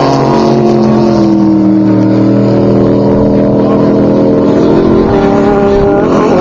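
Off-road race buggy engines running hard at high revs as they go by, the engine note dipping in pitch about a second in and climbing again near the end.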